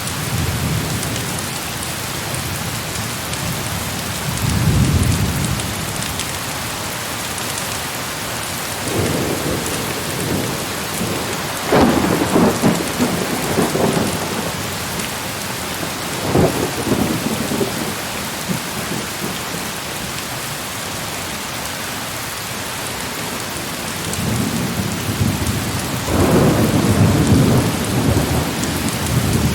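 Heavy rain pouring steadily, with repeated rolls of thunder: a short rumble about four seconds in, a louder crack and rumble around twelve seconds, another near sixteen, and a long rolling rumble near the end.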